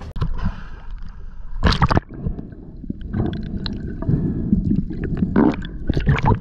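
Sea water sloshing and splashing around a camera held at the surface, with gurgles as small waves wash over it. Louder splashes come about two seconds in and again near the end.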